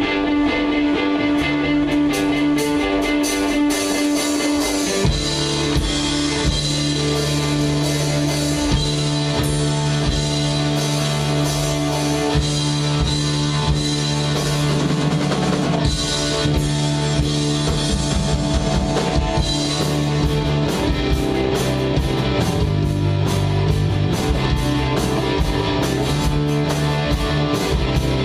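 Live rock band playing: guitar and drum kit, with a bass line coming in about five seconds in.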